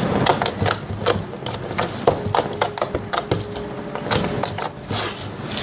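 Slime being squeezed and poked by hand, giving a run of irregular sharp clicks and pops.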